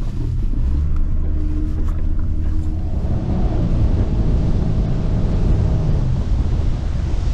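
Boat motor running steadily with a low hum, with wind on the microphone.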